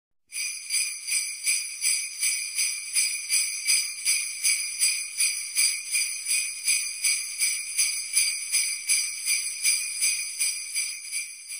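Jingle bells shaken in a steady rhythm, about two shakes a second, fading out near the end.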